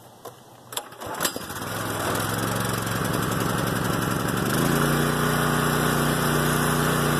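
Gas pressure washer's small engine started with the choke on: a few sharp clicks, then it catches about a second in and runs steadily, stepping up to a stronger, higher note a little past halfway.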